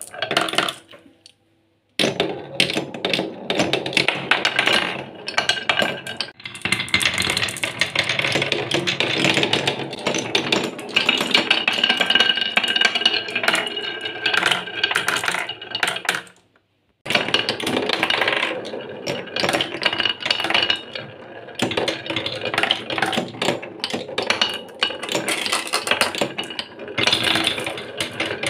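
Glass marbles rolling along wooden marble-run tracks and clacking against one another and the wooden blocks, a busy stream of rattles and clicks. It stops briefly twice, about a second in and again about sixteen seconds in.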